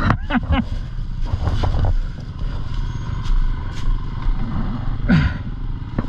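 Dirt bike engine running at low, uneven revs, with scattered knocks and clatter.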